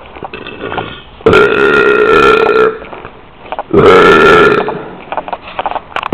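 Two loud, drawn-out belches. The first lasts about a second and a half, and the second, about a second later, is a little shorter and fades out.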